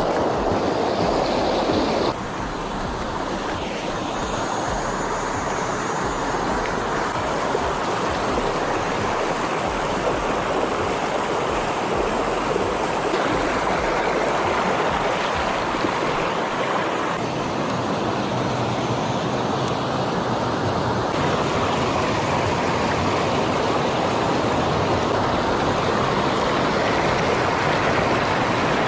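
Shallow rocky creek rushing over stones and small cascades close by, a steady, fairly loud rush of water. Its tone shifts abruptly a few times as the footage cuts between spots along the stream.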